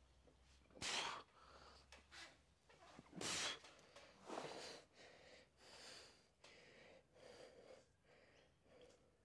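A man taking several sharp, forceful breaths, four or five in the first six seconds, as he braces to lift heavy dumbbells from his knees.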